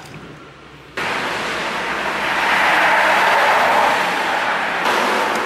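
Road traffic: a vehicle going by on a busy road, its noise coming in abruptly about a second in, swelling, and easing off near the end.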